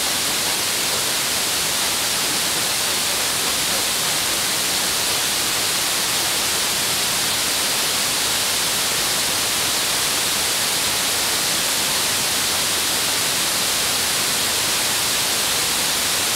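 Steady FM radio static hiss from a receiver tuned to 56.4 MHz, with no programme audible: the distant station's signal, arriving by F2-layer propagation, has faded into receiver noise.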